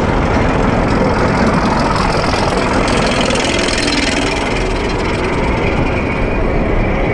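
Onboard noise of an Intamin inverted roller coaster train cresting its lift hill and starting down the first drop: a loud, steady rumble of the train on the steel track.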